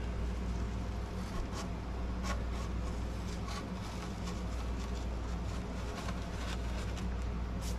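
Light scrapes and a few scattered soft knocks as a refractory piece is handled and set back into the top of a Dutchwest wood stove, over a steady low hum.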